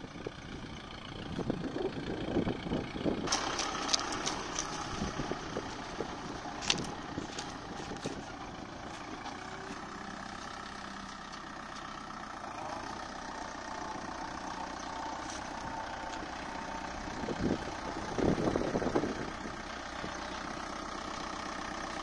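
Kubota MU4501 tractor's four-cylinder diesel engine running steadily. A few seconds in there is a scatter of sharp knocks and clatters, and the engine note swells louder briefly about three-quarters of the way through.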